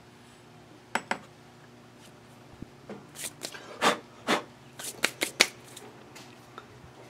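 A small metal spoon working in a sand mold: two quick clicks about a second in, then a run of short scraping, rustling sounds of spoon and loose sand, the loudest near the end.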